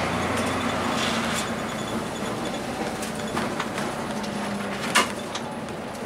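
Inside a 2002 Blue Bird CS transit bus under way: its Cummins ISC diesel and Allison B400R automatic transmission run with a steady low drone, under scattered rattles and clicks from the body and fittings. A sharp knock sounds about five seconds in, as the drone falls away.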